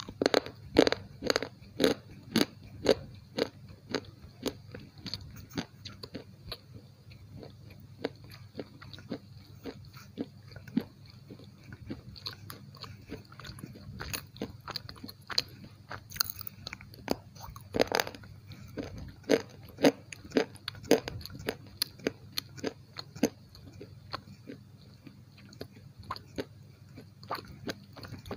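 Close-miked biting and chewing of a slate pencil: a run of sharp, brittle cracks, thickest in the first few seconds and again around the middle, with quieter crunching in between.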